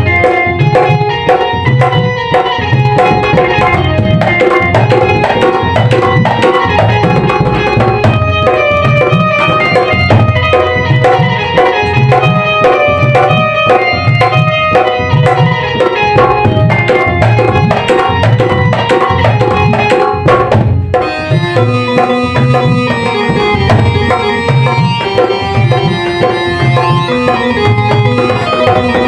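Instrumental interlude of a Hindi ghazal: a steady tabla rhythm under melodic instruments, with no singing. About two-thirds of the way through, a new melodic passage begins.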